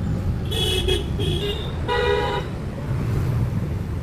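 Vehicle horns honking three times in short toots, the third the loudest, over a steady low rumble of engines and traffic.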